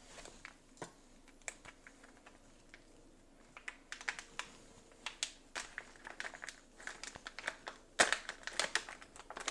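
Plastic packaging of a sealed turkey roast crinkling and crackling as it is worked open by hand: scattered sharp crackles, sparse at first, growing busier after about three and a half seconds, with the loudest flurry near the end.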